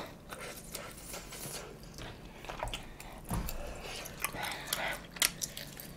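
A person chewing food close to the microphone, with scattered small mouth clicks and smacks.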